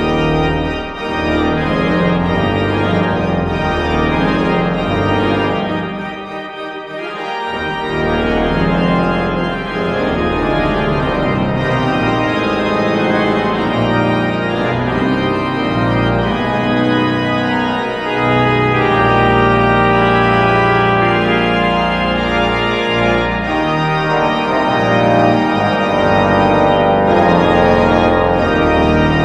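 Pipe organ playing full chords with deep bass notes on the pedals. It grows softer for a moment about six seconds in, then the full sound returns.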